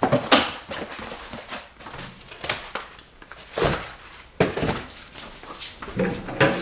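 Cardboard packing being handled during unpacking: a series of irregular rustles, scrapes and light knocks, roughly one every second.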